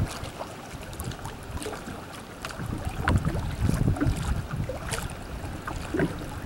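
Wind gusting on the microphone, with small splashes of river water lapping against a kayak. The gusts are strongest around three to four seconds in.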